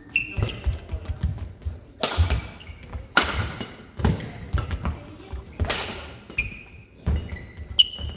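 A badminton rally: four sharp cracks of rackets striking the shuttlecock, about a second apart, over repeated squeaks of shoes on the court floor and low thuds of footsteps and lunges.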